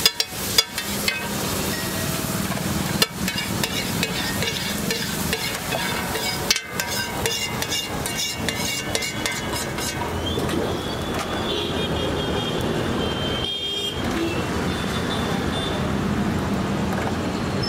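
A metal spatula clatters and scrapes on a flat griddle (tawa) as an egg mixture is chopped and scraped up. There are many sharp knocks in the first ten seconds or so, then fewer. Steady street traffic noise runs underneath.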